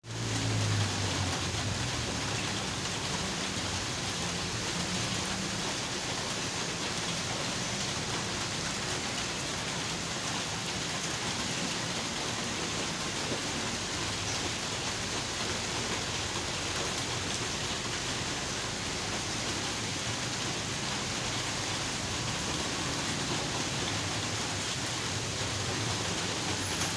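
Steady heavy rain pouring down in an even hiss, with a low rumble in the first few seconds and again near the end.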